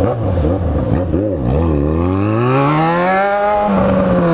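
Yamaha XJ6's 600 cc inline-four through a bare exhaust pipe, pulling away on the throttle. The revs are low and uneven at first, then climb steadily for about two seconds and drop with a gear change near the end.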